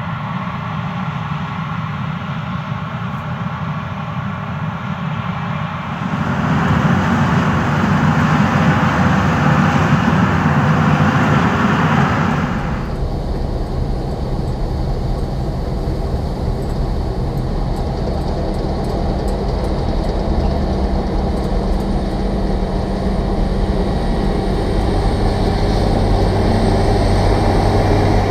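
CLAAS Lexion 750 combine harvester running, a steady heavy machine sound that changes abruptly about six seconds in and again about thirteen seconds in.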